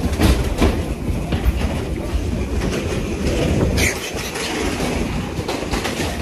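Hurried running footsteps and the jostling of a phone microphone carried at a run: a steady low rumble with irregular knocks.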